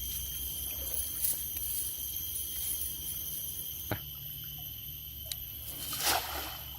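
Steady high-pitched drone of insects, several constant tones held throughout, with a faint low rumble beneath. A single sharp knock comes about four seconds in, and a short noisy rush comes near the end.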